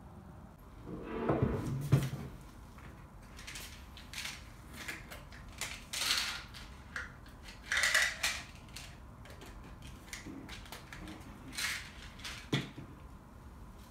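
Clinks, knocks and short rattles of a drinking glass, a water-filter pitcher and a vitamin bottle being handled on a desk, with a louder muffled bump about a second in.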